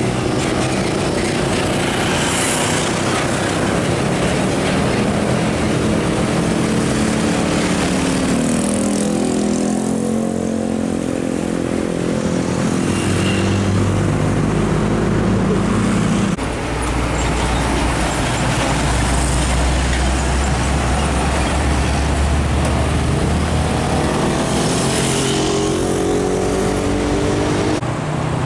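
Heavy diesel trucks pulling away, their engines rising in pitch through the gears and dropping back several times, with a steady low engine drone in between and road traffic noise underneath.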